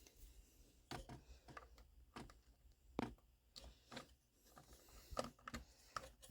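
Faint, irregular clicks and taps of a screwdriver and small screws working against a DVR's casing as the hard drive's mounting screws are backed out.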